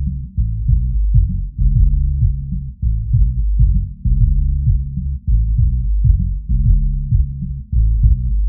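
Bass-boosted electronic music, low-pass filtered so that only the deep bass and sub-bass remain, with a repeating pattern of heavy low notes and beats for testing subwoofers.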